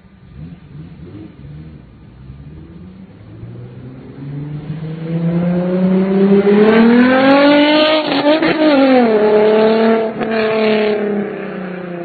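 Volkswagen Golf Mk3 engine accelerating hard toward the microphone, its note climbing steadily in pitch for several seconds. The note drops as the car goes past, pulls on with a brief break a second or so later, then fades as the car drives away.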